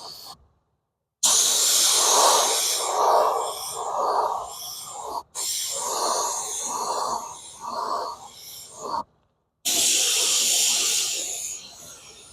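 Silver base-coat paint being sprayed onto an alloy wheel: a loud hissing spray in passes with a pulsing lower rush, cut off abruptly twice by complete silence.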